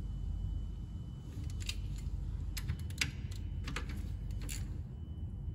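Several sharp, irregularly spaced metal clicks as hand tools are handled at a car's front brake caliper after the slider bolts are nipped up, over a steady low hum.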